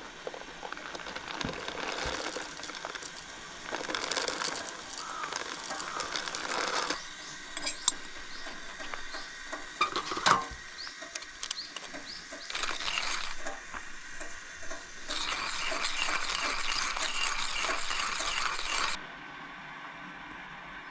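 Camp coffee being made: clinks and handling of metal and dishware, with a few sharp clicks and several stretches of steady hiss lasting a few seconds each.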